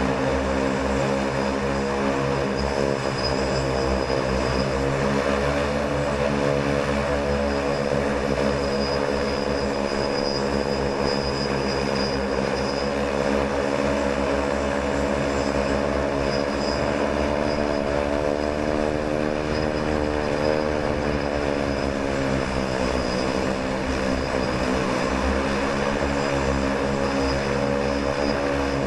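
Manned multirotor flying platform hovering low: a steady drone of many spinning propellers, its pitch wavering slightly up and down as the rotors change speed to hold it in the air.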